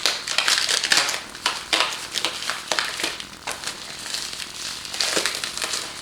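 Packing material and wrapping being crumpled and pulled away by hand, an irregular crinkling and crackling, busiest at the start and again near the end.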